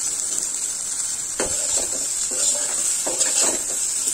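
Raw plantain pieces sizzling gently in a metal kadai on slow fire, while a metal spatula scrapes and tosses them against the pan a few times.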